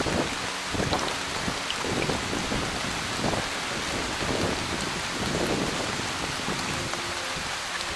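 Steady rain falling, with low footfall thumps about once a second as the hiker walks a wet mountain trail.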